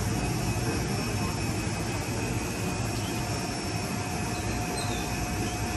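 A steady engine-like drone with a low hum and a faint steady whine running through it.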